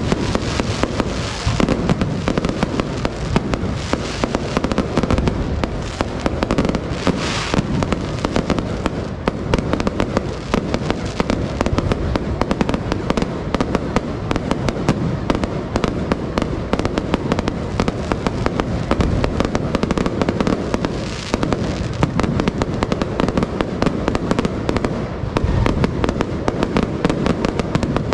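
Fireworks going off in a dense, continuous barrage of bangs and crackles, many a second, without a break.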